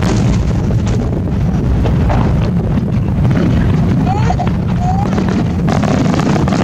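Aerial firework shells bursting in quick succession during a finale: a dense, continuous rumble of booms, with sharper bangs at the start, about a second in and again near the end.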